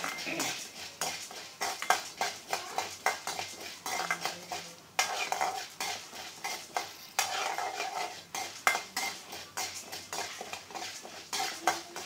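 Metal ladle stirring urad dal and chana dal roasting in a little oil in a hammered metal kadai: rapid, irregular clinks and scrapes of the ladle against the pan, several a second, with a light sizzle. The dals are being roasted until they brown.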